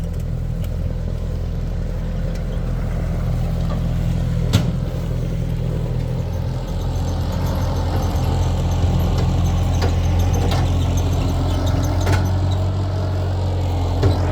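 Vehicle engine running steadily, getting louder about halfway through, with a few sharp knocks.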